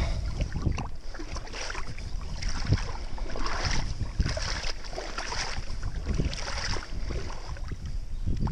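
Shallow water splashing and sloshing irregularly as a large fish is held by the jaw and moves in the water at the shore, with wind noise on the microphone.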